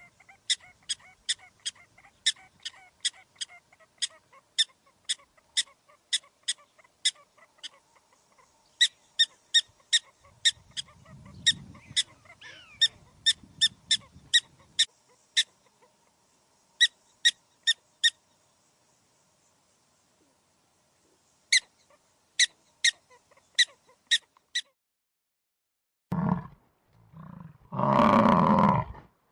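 An animal's short, high-pitched chirps repeated about three times a second in several runs, followed near the end by two loud, low calls from a larger animal.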